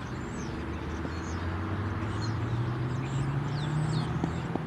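Birds chirping over a low, steady engine hum that slowly rises in pitch.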